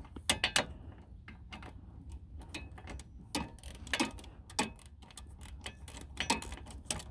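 Hand socket ratchet clicking as a bolt is turned, in irregular short runs of sharp clicks.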